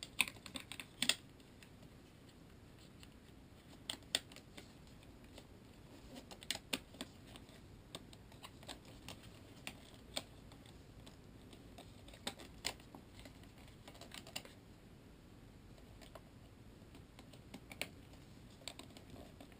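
Scattered small, irregular clicks and taps of plastic parts being handled and pressed into place on an airsoft rifle.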